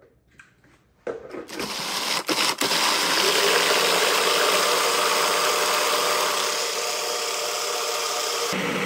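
Food processor motor switched on about a second in, building up and then running steadily as it purées a thick peanut sauce.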